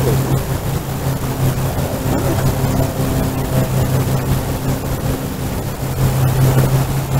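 A steady low hum, with a fainter higher tone above it, running unbroken.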